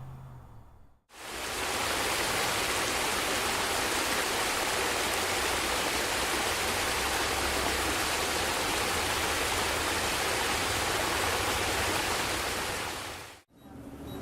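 Ambience recording of steady rushing water, a dense even hiss. It fades in about a second in and fades out near the end.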